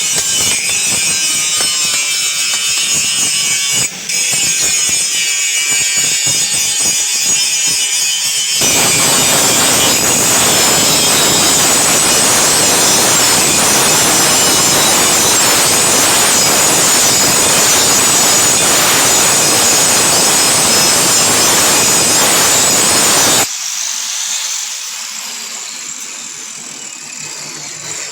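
A power grinder working a steel blade: a high-pitched grind for about eight seconds, then a louder, harsher grind for about fifteen seconds that cuts off suddenly, leaving a quieter run-down near the end.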